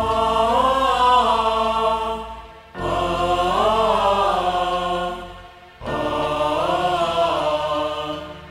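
Devotional hymn music: a pitched melodic line in three phrases, each rising and falling, over a sustained low bass, with a short dip in loudness between phrases.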